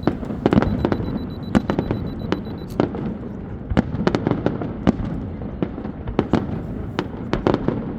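Aerial fireworks display bursting in rapid, irregular succession: several sharp bangs and cracks a second over a continuous low rumble of the show.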